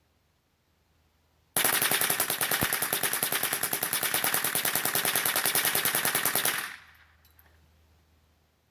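Smith & Wesson M&P15-22 .22LR rifle bump-fired with a Slide Fire stock: one unbroken, rapid, even string of shots starting about a second and a half in and lasting about five seconds, emptying the 50-round drum without a stoppage. The echo fades away after the last shot.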